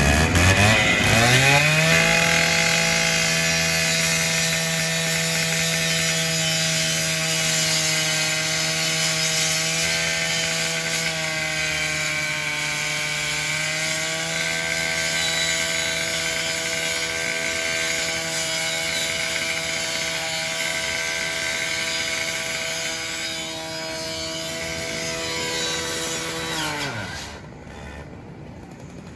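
Gas-powered rotary saw revving up to full speed and cutting into a burned car's trunk lid, its steady engine note over the grinding of blade on sheet metal. The pitch sags briefly midway through the cut, and the saw winds down near the end.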